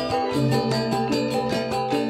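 Balinese gamelan angklung ensemble playing: bronze-keyed metallophones ring in a fast, even pulse of strokes, about seven or eight a second, with the kendang drum beneath.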